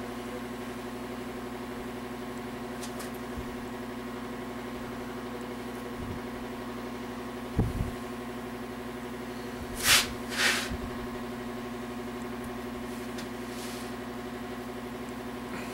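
A steady machine hum at a fixed low pitch, with a dull knock about seven and a half seconds in and two short hissing noises, half a second apart, about ten seconds in.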